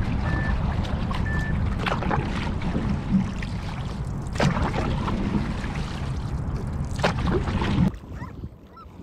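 Sprint canoe paddled with a single-bladed paddle: the blade splashes into the water about every second and a quarter over a steady low rumble of wind on the boat-mounted microphone. About a second before the end the sound drops to a much quieter open-air background.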